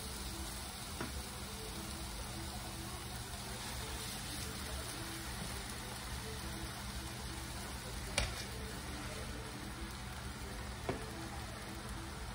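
Tomato and coconut-milk sauce sizzling steadily in a skillet, with a few light clicks of metal tongs as fried fish pieces are laid in; the sharpest click comes about eight seconds in.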